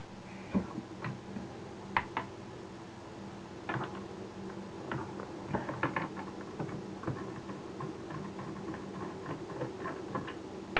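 Small clicks, taps and rattles of plastic and metal camera parts being handled and worked with a screwdriver during disassembly, scattered irregularly, over a faint steady hum.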